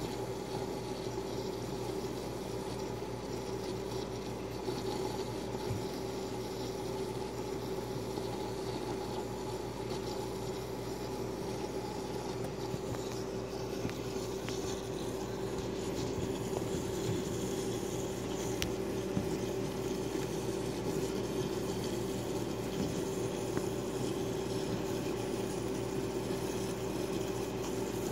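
AquaC Remora hang-on-back protein skimmer running: a steady pump hum with water bubbling and trickling through the skimmer's bubble box.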